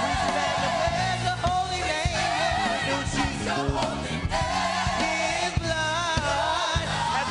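Gospel choir singing with wavering, vibrato-laden voices over band accompaniment, with a steady bass line and drum strokes keeping the beat.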